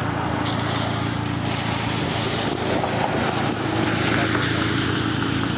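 A vehicle engine runs at a steady idle drone, with a hiss layered over it that grows stronger about half a second in and again a second later.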